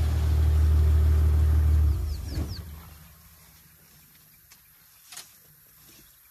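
African elephant rumbling at close range: a loud, deep, steady rumble that holds for about two seconds, then fades away by about three seconds in.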